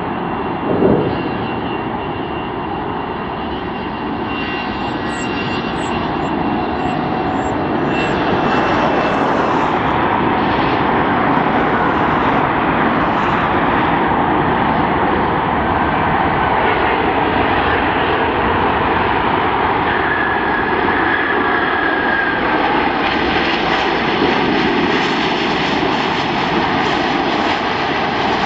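Airbus A380 jet engines on final approach and landing: steady, loud jet noise that grows louder a few seconds in and then holds, with a brief thump about a second in.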